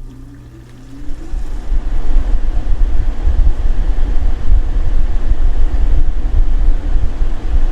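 Air conditioner starting up: a low hum with a faint rising tone, then the fan comes on about two seconds in and runs with a steady, loud, low rush of air.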